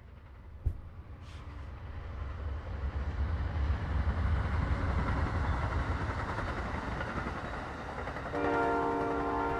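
Amtrak California Zephyr passenger train passing close by: a low rumble builds as the GE Genesis diesel locomotives go past, then the Superliner cars roll by. About eight seconds in, the locomotive horn begins a steady held chord. A single sharp click sounds just under a second in.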